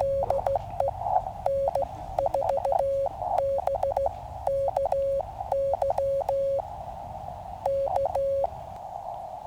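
Morse code (CW) from a QCX mini QRP transceiver: one steady tone keyed on and off in dots and dashes, over the hiss of the receiver's narrow filter. There is a longer stretch of plain hiss about seven seconds in, then one more short run of keying.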